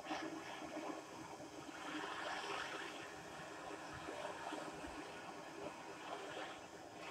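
Steady rushing hiss of a gas torch flame heating a 50cc two-stroke exhaust to burn off the carbon inside, a little louder about two seconds in.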